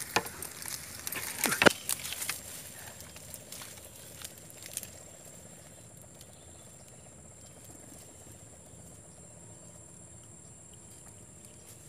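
Dry reed stems crackling and rustling for the first few seconds as a landed barramundi is handled on them, with one sharp crack about a second and a half in. After that only a faint, steady, high-pitched insect trill.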